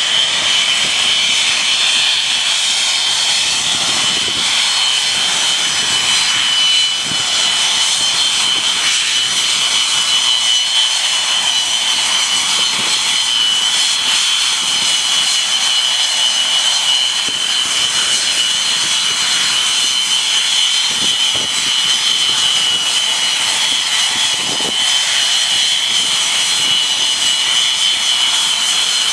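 The two Rolls-Royce Avon turbojets of an English Electric Canberra running at taxi power: a loud, steady, high-pitched turbine whine over a broad rush of jet noise.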